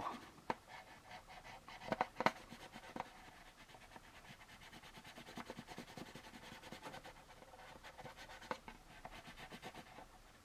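Faint scratchy rubbing of a homemade metal burnishing tool over Scotch tape on a plastic model kit's saucer, with a few sharper clicks. The tape is being pressed down onto the old water-slide decal so that it will lift the decal off.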